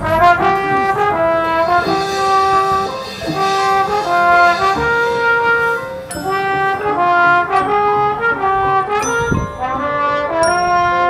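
High school marching band's brass section playing a chord progression, the chords moving every half second or so. A few high ringing notes are struck over it in the second half.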